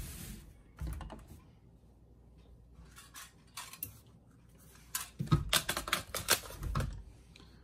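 Hard plastic and metal clicks and clacks of a magazine being handled and seated into the magazine well of an AR-15-style rifle, a Brownells BRN-Proto. A few light clicks come first, then a quick, loud run of clacks about five to six and a half seconds in.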